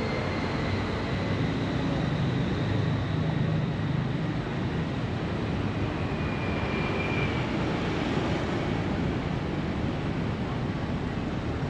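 City street traffic: cars driving past on a busy road, a steady low rumble of engines and tyres.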